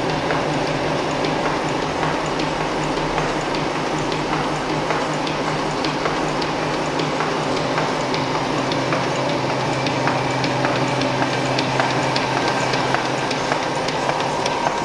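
ZF490A pocket envelope machine with peel-and-seal applicator running steadily: a continuous mechanical clatter with a low hum and frequent sharp clicks.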